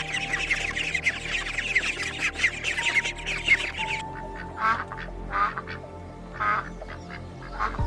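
Ducks quacking over background music: a crowded chorus of many overlapping calls for the first half, then a few separate quacks.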